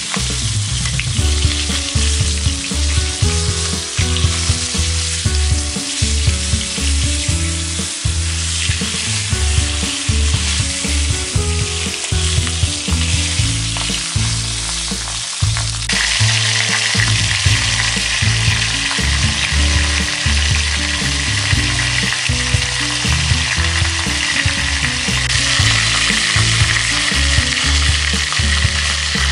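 A whole catla fish head frying in hot oil in a large metal kadai: a steady sizzle, with the clicks and scrapes of a long metal spatula turning the head. The sizzle grows louder and brighter about halfway through.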